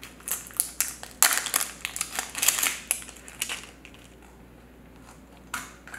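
Plastic crackling and clicking as a Mash'ems toy capsule and its wrapper are handled and twisted open, rapid and busy for about three and a half seconds. After that there is a quieter stretch, and a single click comes near the end.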